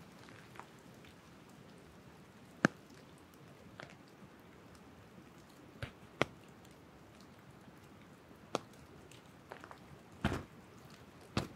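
Light rain in woodland: a faint steady patter with scattered single drops landing close by as sharp ticks at irregular intervals. The loudest tick comes about two and a half seconds in, and a short cluster of them comes near the end.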